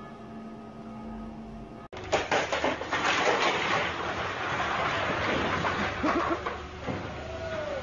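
A low steady hum, then after about two seconds a sudden loud clatter of packs of plastic water bottles tumbling off a warehouse shelf, with water spraying and splashing from burst bottles.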